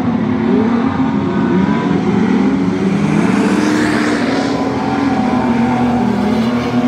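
Several standard saloon race cars' engines racing on a dirt speedway track, their notes rising and falling over one another, with a car passing close about four seconds in.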